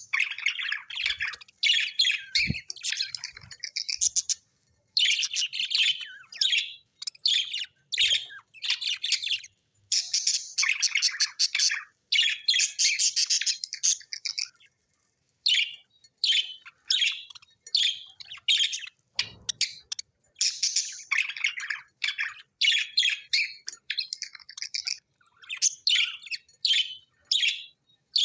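Budgerigars chirping and warbling in quick, busy runs of high calls, broken by short pauses.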